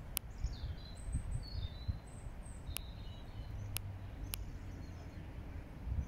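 Short, faint, high chirps from small birds, scattered through the first half, over a steady low background rumble. Four sharp clicks fall in the first half and middle.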